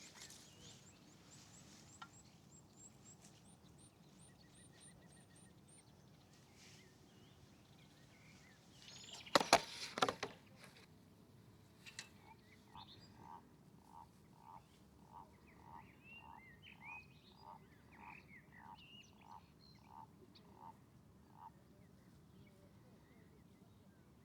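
Outdoor wildlife sounds: an animal calling a run of about fifteen short, evenly spaced notes in the second half, with birds chirping over it. A brief louder clatter comes a little before the middle.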